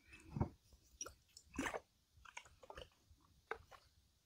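Faint scattered clicks and soft taps from small objects being handled at a table, a few in the first two seconds and a single sharper click about three and a half seconds in.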